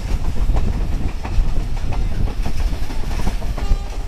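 Pakistan Express passenger train running along the track, heard from aboard: a steady low rumble with repeated clicks of the wheels over the rail joints. A brief pitched tone sounds near the end.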